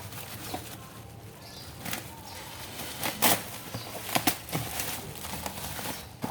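Packaging being handled and opened by hand: rustling and crinkling, with a few sharp crackles and knocks about three and four seconds in.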